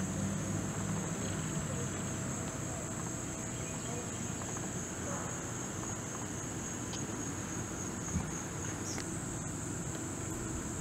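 Steady, high-pitched chorus of insects trilling without a break, typical of crickets. A faint low hum fades out in the first couple of seconds.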